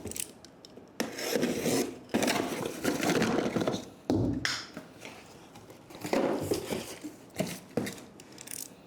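Gaming-chair parts being handled and pulled out of their cardboard packing: several rubbing and scraping sounds, with one dull thump about four seconds in.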